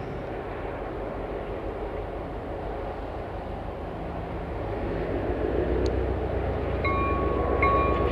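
Approaching diesel locomotive, a low engine rumble that grows louder over the last few seconds. Near the end its bell starts ringing, about once a second.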